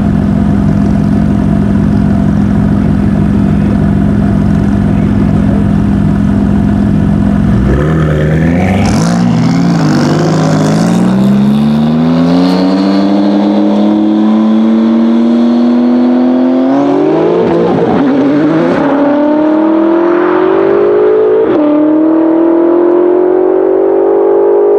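760 hp Gorilla Performance-tuned BMW M5 F10's twin-turbo V8 held at steady revs on the start line, then launching about eight seconds in and accelerating away through the gears, the pitch climbing and dropping back at each upshift. A second engine, the 950 hp Porsche 997 Turbo's, accelerates alongside it later on.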